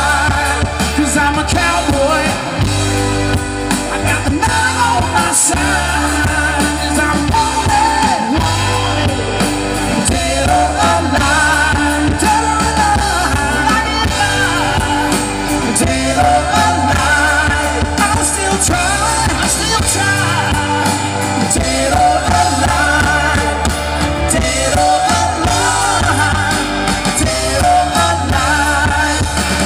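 Live rock band playing a song with a lead vocal over electric and acoustic guitars, bass guitar and drums.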